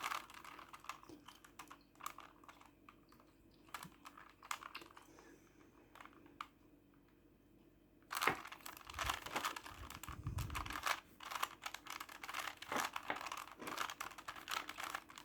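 Plastic Rubik's Cube layers being turned by hand, clicking and rattling. The turns are sparse and faint for the first half, then come as quick, dense clicking from about eight seconds in.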